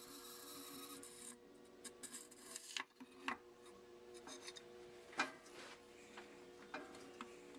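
Small steel hydraulic valve parts being handled and worked by hand: light scraping and scattered clicks and taps as the parts are fitted. A faint steady hiss stops about a second and a half in, and a faint hum runs underneath.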